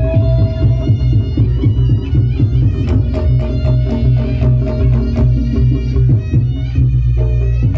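Reog Ponorogo gamelan accompaniment playing: a reed pipe (slompret) holds a high note over fast, dense drumming and low gong-like tones. The reed note drops out for a couple of seconds, then comes back.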